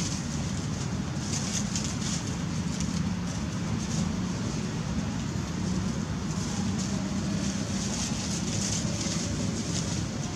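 Steady outdoor ambience: a continuous low hum and rumble under a high hiss that swells and fades every second or so, with no clear animal calls.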